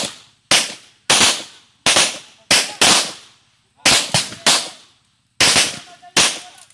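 Handgun shots from more than one shooter on a firing line, about a dozen sharp reports at an uneven pace, each trailing off in a short echo.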